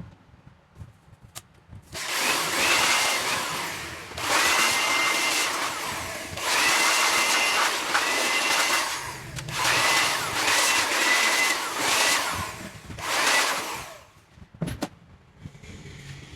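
A small electric motor tool, such as a blower or a drill, run in five bursts of a second or two each. A whine rises in pitch as it spins up at the start of several bursts.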